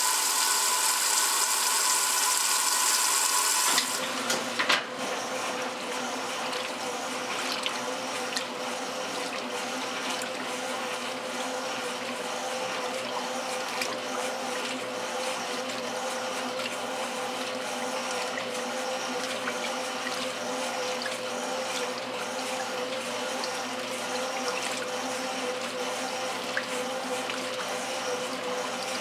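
1968 Kenmore top-load washer running with its agitator churning the load in water. A loud rushing hiss of water filling cuts off suddenly a few seconds in, with a clunk a second later. After that the washer carries on with a steady motor hum and rhythmic sloshing.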